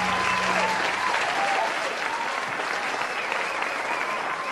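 Audience applause with scattered cheering as a live rock song ends; the band's last held low note fades out in the first second.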